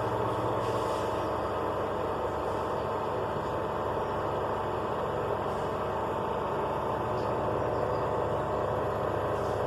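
Bajaj mini induction cooker running at power level 5 after repair: a steady whirring hiss of its cooling fan with a faint hum, as the water in the pot on it heats toward the boil.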